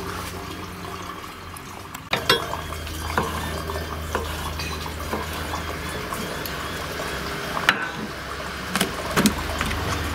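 Kitchen knife cutting a squid tube into rings on a wooden chopping board: a handful of sharp, separate knocks as the blade meets the board, over a steady low hum and hiss.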